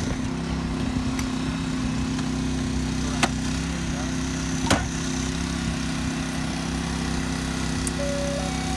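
Small petrol engine of a hydraulic rescue-tool power unit running steadily, powering a hydraulic spreader set into the car's lower A-post. Two sharp metallic clicks, a little over three seconds in and nearly five seconds in.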